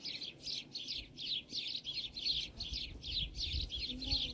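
Small birds chirping busily, with many quick, overlapping chirps a second and no break.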